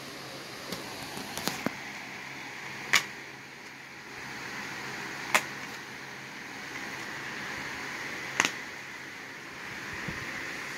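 Plastic DVD case being handled and opened, giving several sharp clicks and snaps a few seconds apart over a steady hiss.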